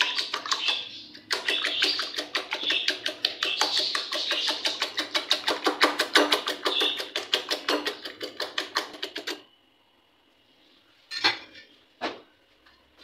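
Eggs being beaten by hand in a glass bowl: rapid, even clinking of the utensil against the glass, stopping about nine and a half seconds in, followed by two single knocks near the end.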